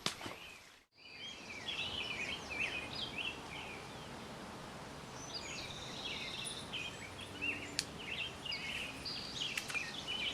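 Several birds chirping and singing over a steady outdoor background hiss. A sharp click comes at the start, the sound drops out briefly about a second in, and a few faint clicks follow later.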